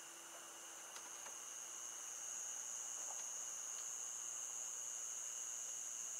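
Insects trilling steadily in a continuous high-pitched tone, with a fainter lower trill beneath it.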